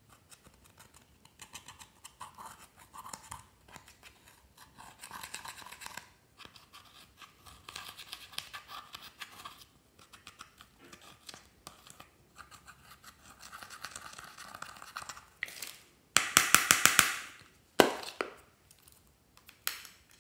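A thin pick scraping pressed eyeshadow powder out of the pans of a makeup palette, in bouts of rapid scratching. About 16 s in comes a much louder, harsher stretch of scraping, then a sharp knock.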